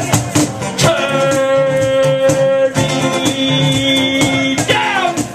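Live acoustic music: a guitar over a rattling, shaker-like beat, with two long held notes about a second and three seconds in.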